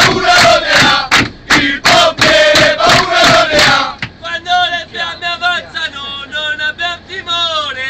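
A group of firefighters singing a chant together, loud and in unison, with hand claps about three times a second. About four seconds in the clapping stops and fewer voices carry the tune on more quietly.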